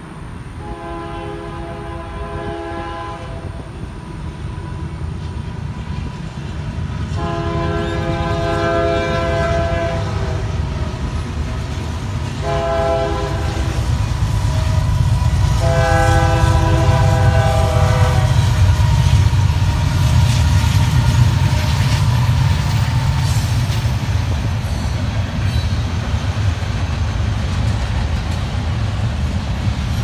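Freight locomotive horn sounding the grade-crossing signal: two long blasts, a short one and a long one, in a multi-note chord. As the lead GE AC44CW and EMD SD70M diesel-electric locomotives pass, their engines' deep rumble builds, then carries on under the clatter of the freight cars rolling by.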